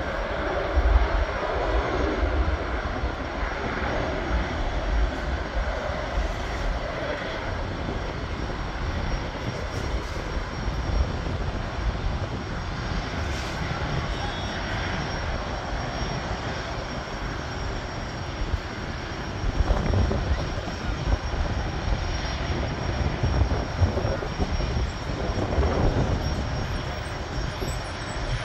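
Business jet with twin rear-mounted engines taking off and climbing away, a steady broad rush of jet engine noise with a strong low rumble.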